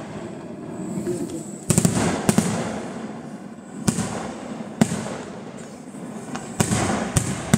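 Aerial fireworks going off in a series of sharp bangs: a quick cluster about two seconds in, single bangs around four and five seconds, and two more near the end, with a steady rumble between them.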